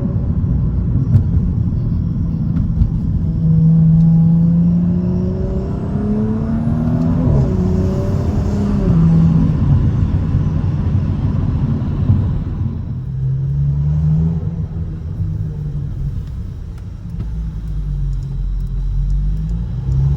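Audi B9 S4's turbocharged V6 exhaust, running with a stock exhaust and cat delete, rising and falling in revs several times, with a few sharp crackles. The crackles come from the EPL Stage 1 ECU tune.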